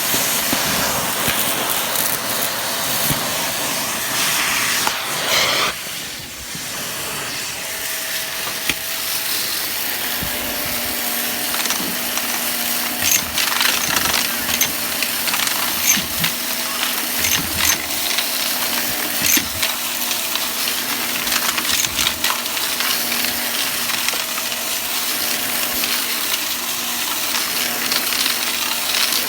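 Vacuum cleaner running and sucking up crunchy debris, with many sharp clicks and rattles as bits are drawn in. It dips briefly about six seconds in, and a steady motor hum comes through from about ten seconds in.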